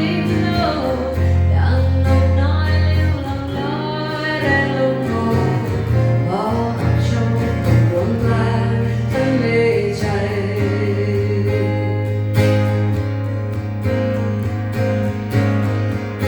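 Live band music with guitar and bass, carrying a melody line that bends and slides in pitch for the first part, then settles into steadier held notes.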